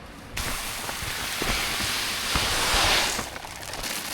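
Dry chicken feed poured into a feed bin: a steady rushing hiss that starts suddenly just under half a second in, swells, and tails off after about three seconds.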